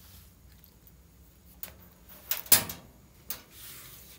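Knocks and clatter of the dryer's front bulkhead panel being handled during disassembly. There are a few sharp knocks, with the loudest cluster about two and a half seconds in, then a short scrape near the end.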